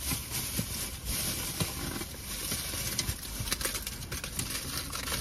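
Aluminium foil wrapped around a burrito crinkling as it is pulled open by hand, as scattered small crackles that come thicker in the second half.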